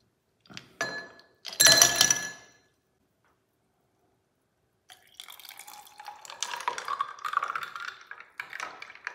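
Ice cubes dropped into a tall drinking glass, clinking and ringing, the loudest drop near two seconds in. After a pause, orange juice is poured over the ice in a steady splashing stream whose pitch rises as the glass fills.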